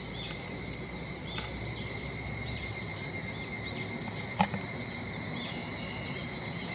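Cicadas singing: a steady, high-pitched drone with short chirping notes repeating over it. A single sharp knock sounds about four and a half seconds in.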